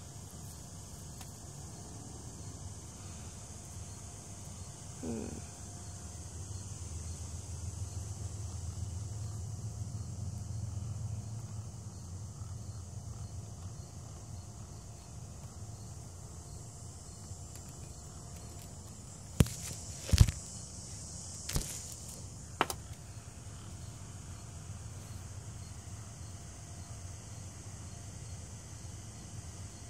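Outdoor ambience with a steady, high insect chorus, a low rumble that swells for a few seconds, and four sharp clicks about two-thirds of the way in.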